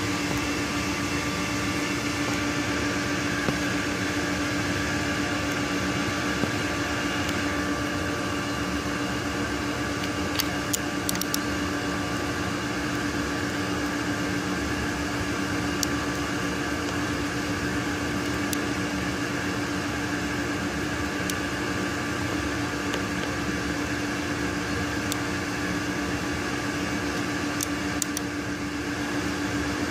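Steady mechanical hum of a running fan-like machine with a constant low tone, and a few faint, scattered clicks.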